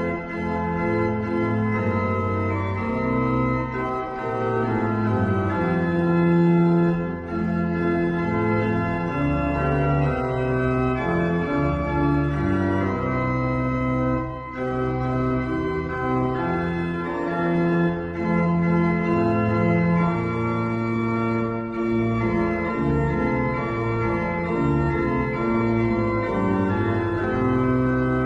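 Background music of held chords that change every second or so, with no drums.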